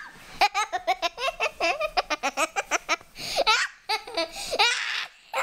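Young girl laughing hard as she is tickled, in quick repeated bursts of giggling broken by two breathy gasps, one around the middle and one near the end.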